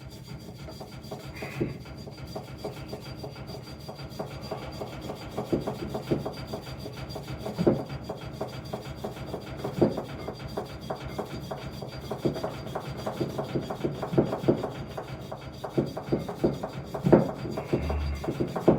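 Rusty magnets on a vintage Briggs and Stratton flywheel being scrubbed by hand to clear the rust: a continuous run of quick scraping strokes, broken by occasional sharper knocks.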